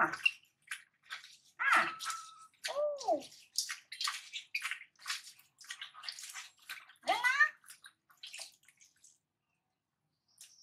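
Water splashing and dripping as hands wash in a stainless steel bowl next to a water-filled basin. A few short, high squeaks cut through it, one falling in pitch.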